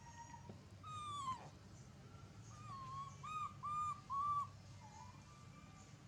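Baby monkey's high, whining cries: one long call falling in pitch about a second in, then a string of short arched calls, three of them in quick succession around the middle.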